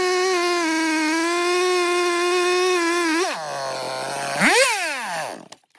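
Stihl two-stroke chainsaw running at high revs, then dropping to a low idle about three seconds in. Near the end it gives one brief rev and falls away, then stops.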